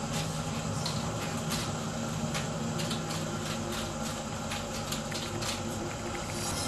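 Light, irregular clicks and taps from a small steel container being handled over a cooking pot while seasoning is added, over a steady low hum.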